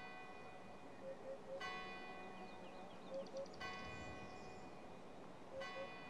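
Faint bell-like tone struck about every two seconds, each stroke ringing on and fading slowly, with a few soft short notes between the strokes.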